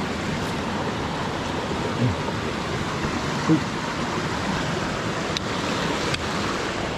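Mountain stream water rushing steadily, with two faint clicks late on.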